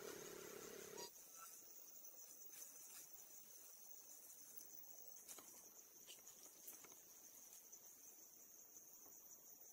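Faint insect chirring: a steady high buzz with pulsing higher calls over it, and a few faint clicks. A low hum stops abruptly about a second in.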